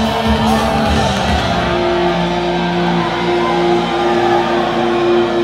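Rock band playing live through a concert PA, heard from the audience, with guitars holding long sustained notes. Heavy low thumping from drums and bass fills the first couple of seconds, then eases off.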